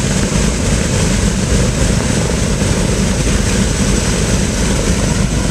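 Two of a Douglas DC-7B's Wright R-3350 Turbo-Compound 18-cylinder radial engines, with their propellers, running steadily after start-up.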